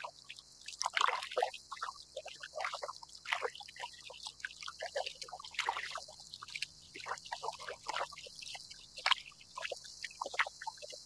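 Small waves lapping against the plastic hull of a drifting kayak: irregular little splashes, drips and gurgles, with no steady rhythm.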